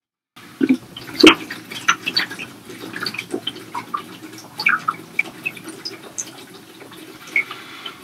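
Water glugging out of an upturned plastic gallon jug as it is chugged, with irregular bubbling plops as air gulps back into the jug. A sharp knock comes about a second in.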